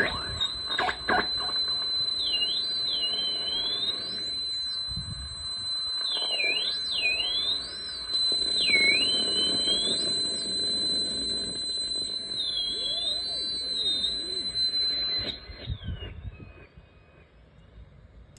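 Estruendo Selenita ring modulator and noise generator pedal with both effects engaged, holding a steady high electronic whistle while repeated swooping pitch glides dive and rise over a rough noisy rumble. About three seconds before the end the whistle slides down and cuts off, leaving a faint hiss.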